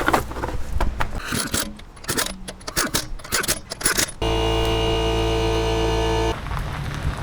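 Metal clinks and rattles of tools and hardware as a wheel goes back on. Then, about four seconds in, a power tool runs steadily for about two seconds and stops abruptly.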